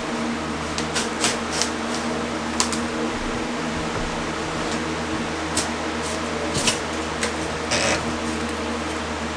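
Box fan running with a steady hum, with scattered crackles and snaps as a drywall panel is torn away from the wall framing above a window opening.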